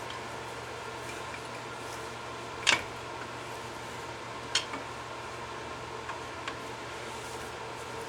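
A few sharp metal clanks of a hand tool against the brake caliper, the loudest about a third of the way in and another just past halfway, over a steady mechanical hum.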